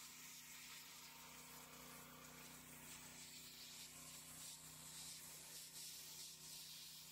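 Very faint, steady hiss of pressure washer spray hitting concrete bags, with a low steady hum underneath.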